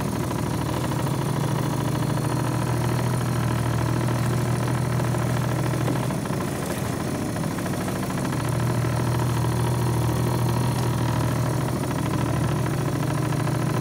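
A small motorboat's engine running steadily at low speed, a constant drone that eases slightly about six seconds in and picks up again about two seconds later.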